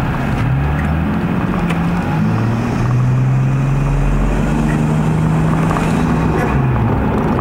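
Toyota 1JZ-GTE turbocharged inline-six in a 100-series HiAce van, driving under power. The engine note rises, drops back once about two seconds in, then holds and climbs slowly before falling away near the end.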